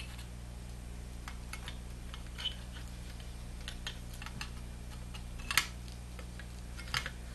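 Scattered light metallic clicks and taps as the metal mechanism plate and small parts of a GE Wildcat portable record player are handled and fitted back together, the sharpest click a little past the middle.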